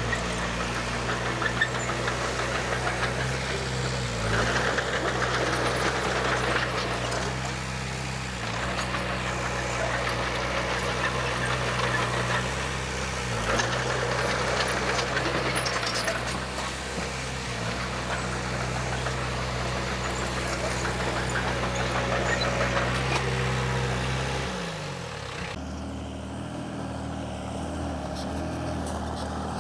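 Diesel engine of a Komatsu D20P bulldozer running steadily under load while pushing soil, with a clattering rattle over it and brief dips in engine note. Near the end the engine note falls and the sound turns lower and duller.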